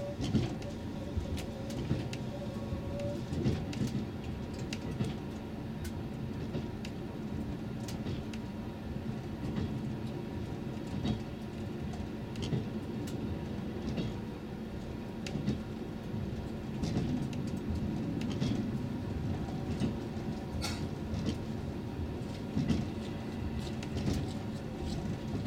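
Diesel express train running at speed, heard from inside the driver's cab: a steady rumble of engine and wheels on rail, with scattered clicks and knocks. A faint steady tone fades out about three seconds in.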